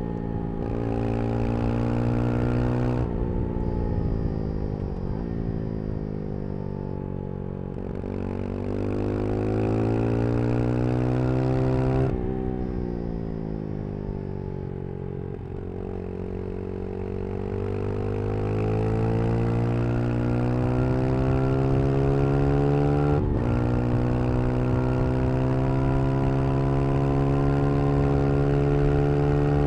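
Brixton Crossfire 125 XS's small single-cylinder engine under way, its pitch rising and falling as the rider accelerates and eases off, with several abrupt drops and jumps at gear changes. It holds steady, higher revs over the last few seconds.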